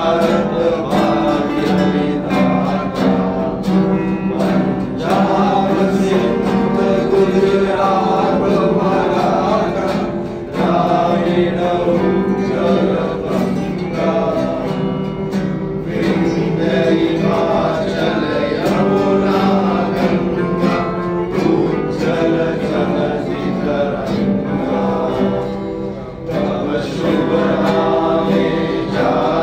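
A group of men singing together to strummed acoustic guitars.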